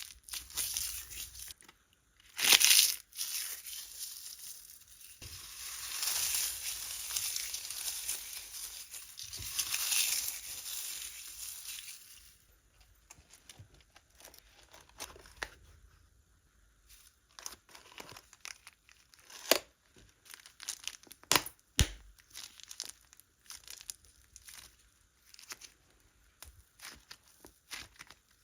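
Hands handling slime and crinkly plastic: about twelve seconds of crinkling and rustling, then quieter, scattered sticky clicks and pops as the slime is pressed and stretched.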